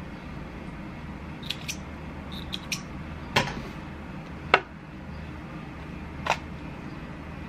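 Cloth face mask being handled and pulled through by hand, giving a few short, sharp clicks and taps, the loudest about four and a half seconds in, over a steady low background hum.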